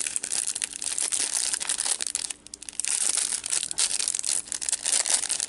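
Clear plastic wrapper crinkling and crackling as it is pulled off a small bar of soap by hand, with a short pause a little before halfway through.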